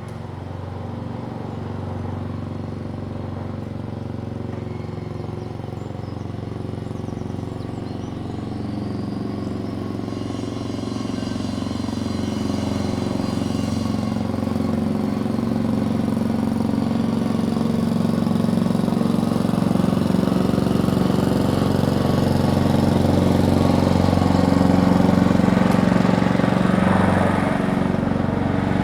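Lawnmower engine running steadily, gradually growing louder.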